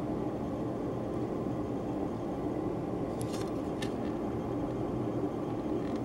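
Steady low background hum of room noise, with a few faint light clicks a little past halfway as the plastic model-kit sprue is handled.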